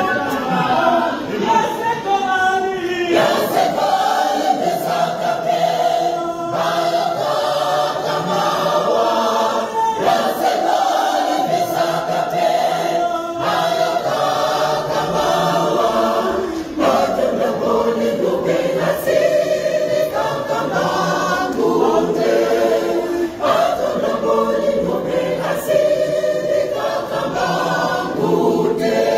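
A church choir of many voices singing a gospel song together.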